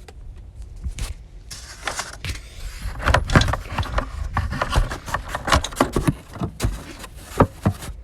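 A part being fitted back over its place in a car's engine bay: a run of clicks, knocks and scrapes, busiest and loudest about three seconds in.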